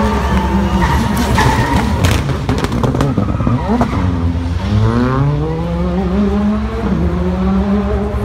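Rally car accelerating hard away from a standing start, its engine climbing in pitch through several gears. It cracks sharply a few times between about one and three seconds in.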